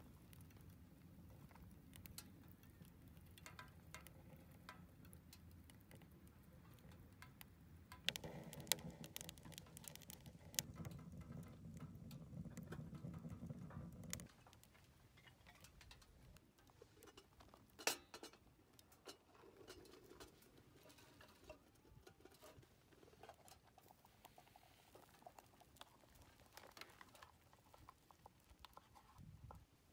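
Faint crackling and ticking of a wood fire burning in a small steel rocket stove, over a low rumble that grows louder about eight seconds in. About fourteen seconds in the rumble drops away, leaving only sparse faint clicks and taps.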